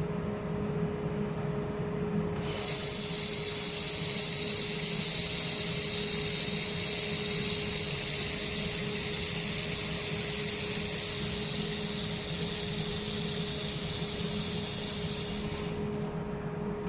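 Reci air-cooled handheld laser welder making a weld pass: a loud, steady, high hiss starts about two and a half seconds in, runs for about thirteen seconds and cuts off near the end. Under it runs the steady hum of the welder's air-cooled unit.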